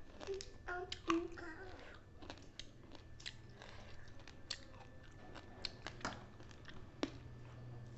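Close-up eating sounds: chewing with many small wet mouth clicks. A few brief voice sounds come in the first second or two.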